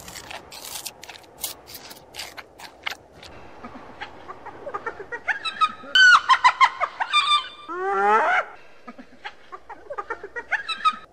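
Crunching and chewing sounds for about the first three seconds. Then a spotted hyena calls: a run of high, quick, stacked calls about six seconds in, a longer, lower call near eight seconds, and fainter calls after that.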